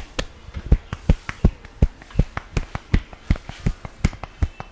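Barber's hands striking a client in a percussive massage: an even run of dull thuds, about three a second.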